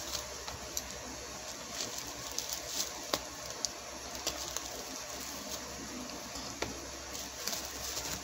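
Bubble wrap and plastic packaging crinkling as it is handled and unwrapped, making scattered light crackles and clicks over a steady hiss.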